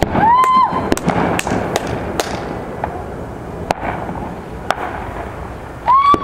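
Fireworks going off: a scattered string of sharp bangs and cracks from aerial shells over a continuous crackling wash. A short rising whistle sounds just after the start and another near the end.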